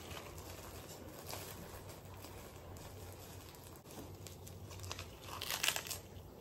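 Crinkling of a plastic food wrapper being handled and torn open, with a louder crackle about five and a half seconds in.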